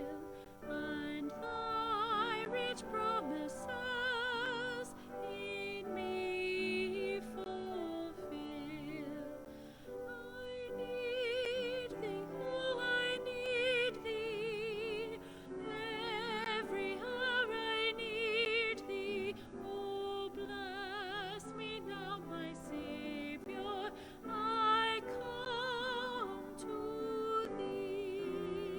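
A solo singer in classical style, holding long notes with wide vibrato over instrumental accompaniment.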